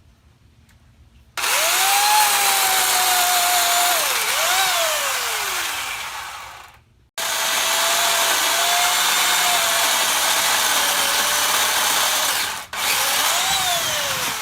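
Remington Ranger 8-amp electric pole saw running with a steady motor whine over chain noise, starting about a second in. It runs in three stretches with two sharp stops, and its pitch dips and climbs back twice.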